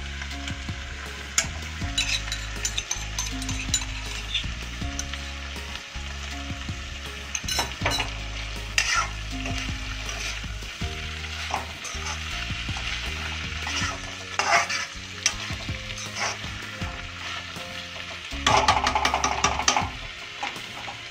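A metal spatula stirs and scrapes sliced kakoda (spiny gourd) around a kadhai while the vegetables sizzle in hot oil as they fry. There are separate scrapes throughout, and a louder stretch of scraping and sizzling near the end.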